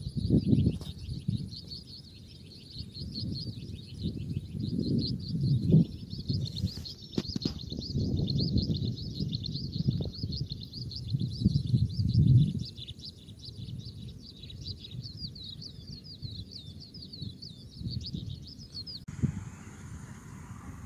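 Fast, continuous high-pitched chirping with low rumbling gusts of wind on the microphone; the chirping cuts off abruptly near the end.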